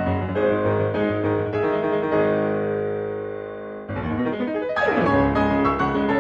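Background piano music: a run of notes, then a held chord that fades away for a couple of seconds before the playing picks up again.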